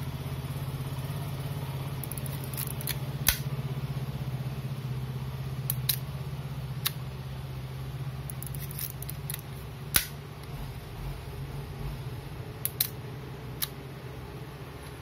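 Sharp, separate mechanical clicks from a vintage Agfa camera being worked by hand, about eight of them spread unevenly, the loudest about ten seconds in. A steady low hum runs underneath and fades near the end.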